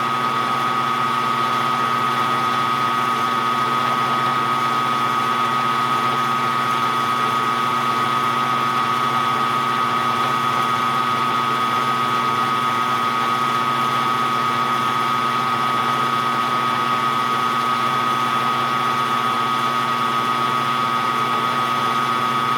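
Shop machine motor running at constant speed: a steady whine holding one pitch, with a fainter hum beneath it.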